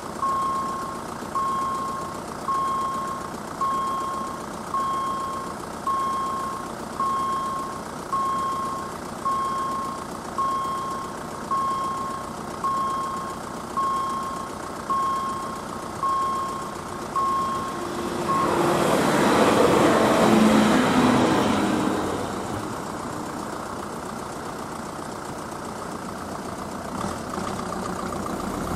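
Level crossing warning signal beeping, a high tone repeating about once a second, which stops after about eighteen seconds. A passenger train then passes over the crossing: a rush of wheel and rail noise that swells and fades over about four seconds, leaving a low rumble.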